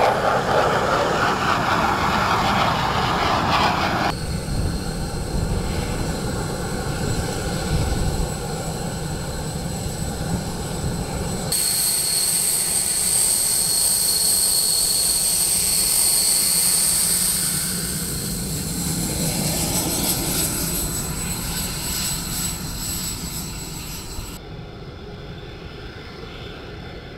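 Military jet engines: first an F-16 fighter's jet engine as it flies by. Then, from about eleven seconds in, the steady high-pitched turbine whine of a T-38 Talon's twin turbojets as it taxis. Near the end comes fainter jet noise from the flight line, fading out.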